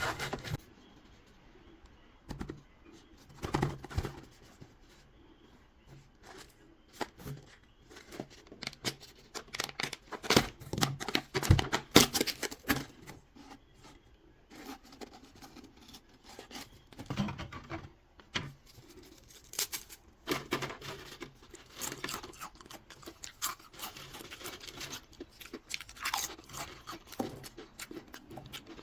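A Pringles can and its packaging being handled and opened: irregular clicks, taps, crinkles and tearing, busiest and loudest about ten to thirteen seconds in.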